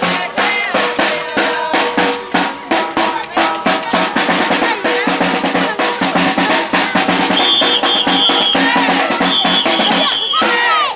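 Batucada percussion ensemble playing a fast samba rhythm on snare and bass drums, with a high steady tone sounding in two stretches in the second half; the drumming breaks off shortly before the end.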